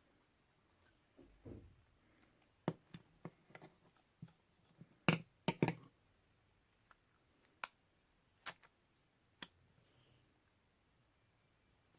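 Hands handling small light objects on a surface: scattered sharp clicks and taps, loudest in a quick cluster about five seconds in, then single taps every second or so.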